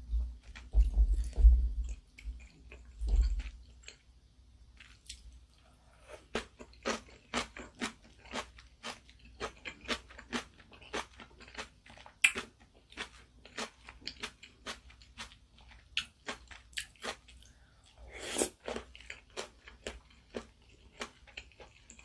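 Close-miked chewing of ramen noodles, heard as a run of quick wet mouth clicks and smacks, several a second. There are a few low thumps in the first few seconds and a louder, longer sound about eighteen seconds in.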